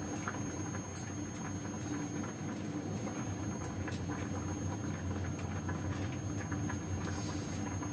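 Light, irregular taps of a knife on a cutting board as tomato is chopped into small pieces, over a steady low hum.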